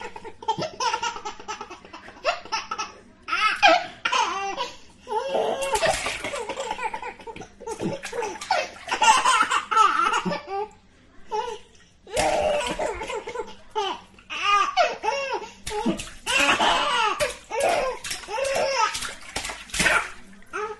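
A baby laughing, giggling and babbling in repeated bouts while splashing water in a bathtub, with short splashes between the laughs.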